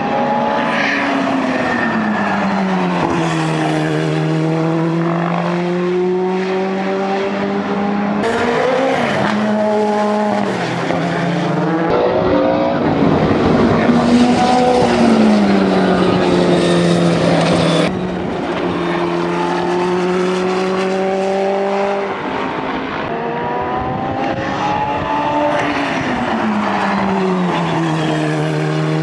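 Toyota Eagle Mk III IMSA GTP prototype's turbocharged 2.1-litre 3S-GTM four-cylinder engine running hard on track. Its note drops and climbs several times through the corners and is loudest in the middle as the car passes close.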